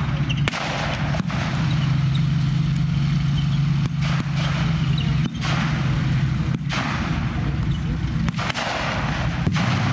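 A WWII Stuart light tank's engine drones steadily as the tank moves. Sharp blank-fire gunshots crack out over it at irregular intervals, about seven in all.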